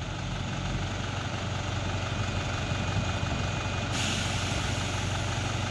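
Heavy truck engine running steadily at low revs. About four seconds in, a steady hiss of air joins it.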